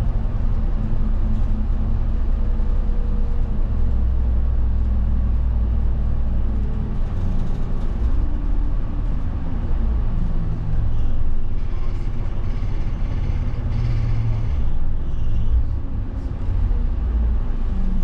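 City bus under way, heard from inside the passenger cabin: a steady engine rumble and road noise, with the engine note rising and falling a few times as it pulls and eases off.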